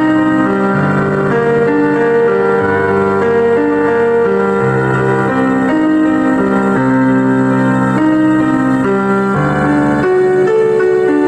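Instrumental music with no vocals: sustained keyboard chords that change every second or so, at a steady level.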